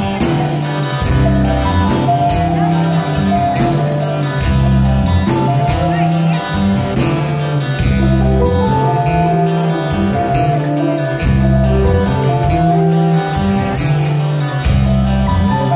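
Live rock band playing: strummed acoustic guitar over electric bass, drums and keyboard, with steady, regular strums.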